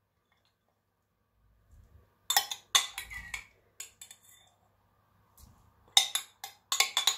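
Metal spoon clinking and scraping against a small glass bowl as rum-soaked raisins are scooped out: a few clinks about two seconds in, then a quicker, louder run of clinks near the end.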